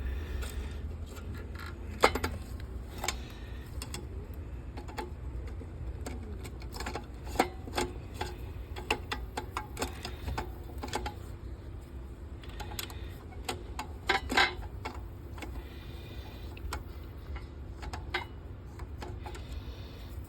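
Irregular small clicks and knocks, a few sharper taps standing out about two seconds in and again near the middle, over a steady low hum.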